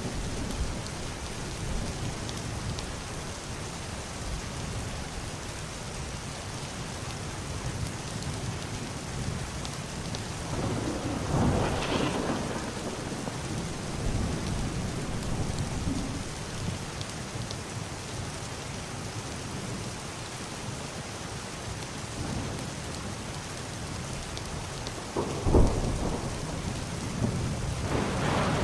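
Heavy rain falling steadily on a wooden roof and window glass, with muffled thunder: a long rumble swells about eleven seconds in, and a sharp crack near the end is the loudest moment, followed by more rumbling.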